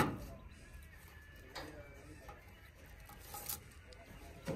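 A few sharp clicks and light knocks from a key and hands against the metal mesh front grille of a JCB 3DX backhoe loader while it is untied and opened; the sharpest click comes right at the start, then three fainter ones spaced out after it.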